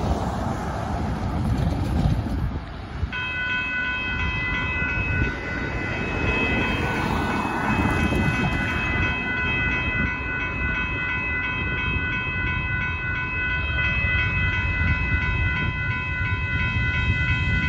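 Railroad grade-crossing warning bells start ringing about three seconds in, a rapid repeating ding that keeps on as the crossing lights flash and the gates lower. Under it, a steady rumble of wind on the microphone, and a car drives over the crossing midway.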